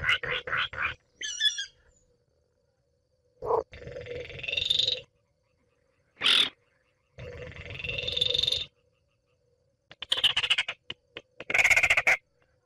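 Recorded Baillon's crake calls played as a hunting lure: dry, frog-like rattles. A quick run of clicks opens, then come two longer rattles of about a second and a half each, rising in pitch, and more clicking rattles near the end.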